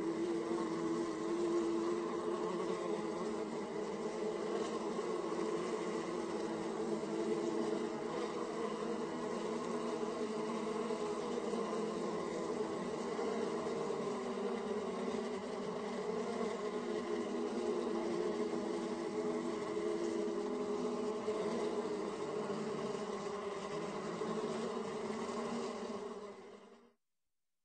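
Bees buzzing, a steady drone of several overlapping pitches that falls away to silence near the end.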